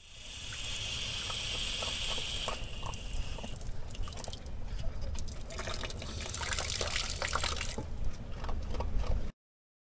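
Water jetting from the open outlet of a two-way garden-tap splitter and splashing onto concrete, its hiss changing as the lever valve is worked. Near the end the flow shuts off, leaving drips and splashes before the sound cuts off suddenly.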